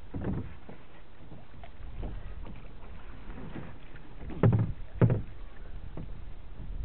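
Small waves lapping and slapping against the hull of a Sunfish sailboat under way, with two louder low thuds about four and a half and five seconds in.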